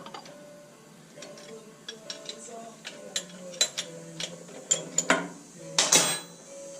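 Hand tools working on metal: a wrench clicking and clinking in short irregular runs as bolts are backed out of a John Deere 480 forklift's transmission housing, with a louder metallic clatter about five seconds in.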